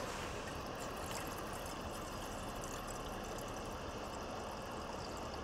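River water flowing over rocks: a steady rush of running water.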